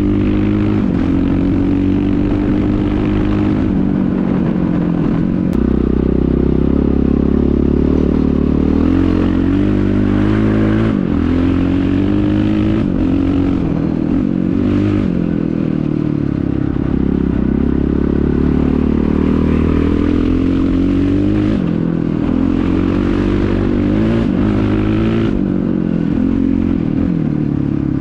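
KTM 620 LC4 single-cylinder four-stroke engine running through an Akrapovic exhaust, its pitch rising and falling repeatedly as the throttle is opened and closed.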